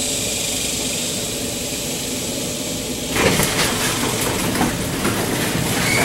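Chain-drive garage door opener running as the sectional garage door opens, a steady mechanical hum at first; about three seconds in, louder rattling and clattering of the door moving in its tracks.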